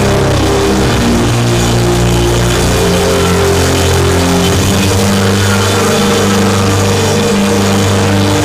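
Live church keyboard music: sustained chords over a low bass, the held notes shifting every few seconds.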